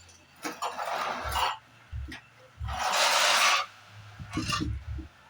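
Two rough scraping strokes, about a second each, the second louder, with a few light knocks between them.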